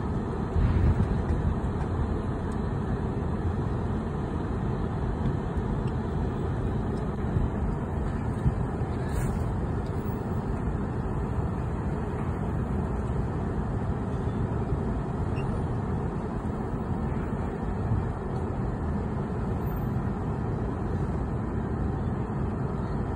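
Steady low rumble of wind buffeting a phone's microphone outdoors, with no clear events standing out.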